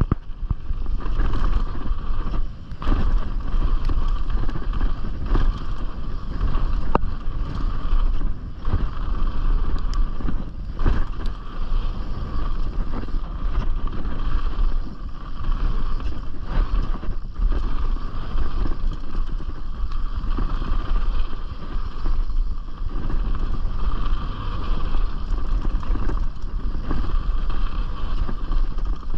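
Canyon Strive full-suspension mountain bike ridden fast down a dirt bike-park trail. Wind buffets the chest-mounted action camera's microphone, over a continuous rush of tyres on dirt, and there are sharp knocks and rattles from the bike over bumps every few seconds.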